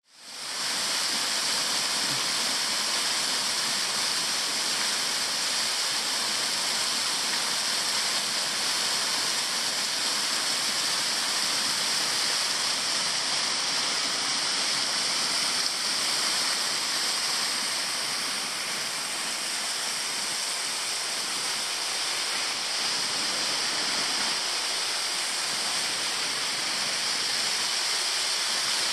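Waterfall spilling down a steep rock face into a boulder-strewn creek bed: a steady rush of falling water that fades in over the first second.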